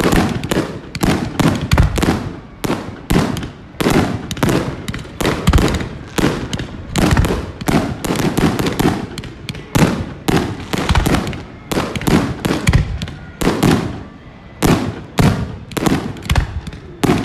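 Aerial fireworks bursting in a rapid barrage of bangs, several a second without a break.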